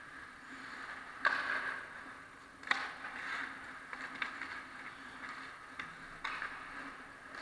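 Ice hockey play on the rink: skate blades scraping the ice in short hissy strokes, with several sharp clacks of sticks or puck, the loudest about a second in, over a steady low hum.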